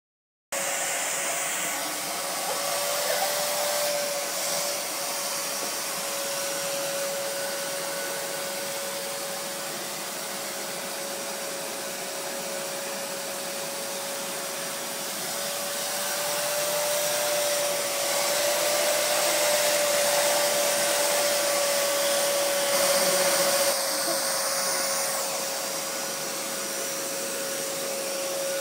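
Vacuum cleaner running steadily: a rush of air with a steady motor whine whose pitch wavers slightly now and then.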